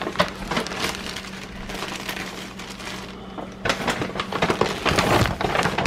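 Plastic bread bags crinkling and rustling as loaves are handled and pushed onto the top of a refrigerator, a quick run of crackles that is busiest in the last two seconds, over a low steady hum.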